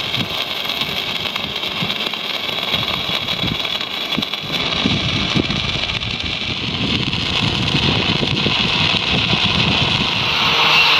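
Stick (arc) welding a steel disc doubler onto a steel boat deck with a small rod at fairly low current: a continuous crackling hiss of the arc that grows louder over the last few seconds.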